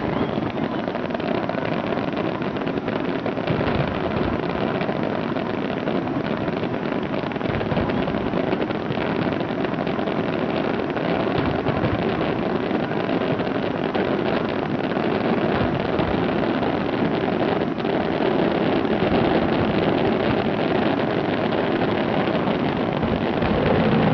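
Steady rumbling outdoor background noise with a few faint knocks, and no loud firework bursts.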